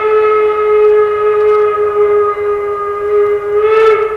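Steam locomotive whistle blown in one long, steady blast as the engine approaches, swelling and rising slightly in pitch near the end.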